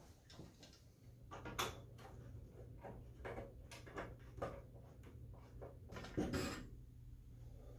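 Steel bed-frame cross rails being handled and unscrewed: a scattered series of faint knocks and clatters, with the loudest knock about six seconds in.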